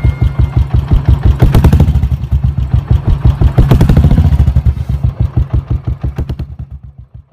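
Royal Enfield Bullet single-cylinder engine thumping at a steady, even beat. It is revved up twice, then fades out near the end.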